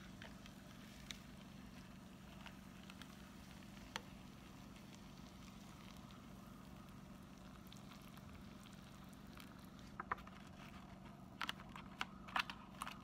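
Hot water pouring faintly from a kettle into an instant noodle cup. Near the end come a few sharp crinkly clicks as the paper lid is handled and pressed shut.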